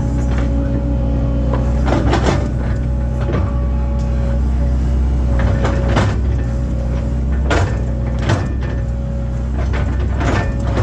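Link-Belt excavator's diesel engine running steadily under load, with a steady high whine over the low drone. Several sharp knocks and clanks sound through it as the bucket works in the dirt.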